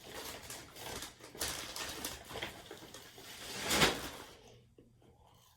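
Rustling and light clatter of takeout food packaging being handled, with one louder rustle about four seconds in, then quiet.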